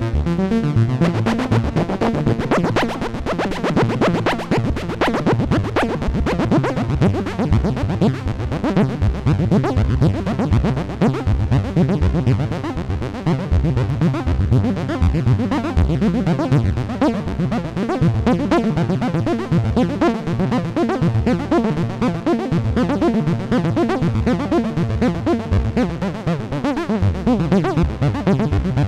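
Dave Smith Instruments Prophet '08 analog polyphonic synthesizer playing a dense run of short, rhythmic notes over a bass line that steps from pitch to pitch. The sound changes about a second in.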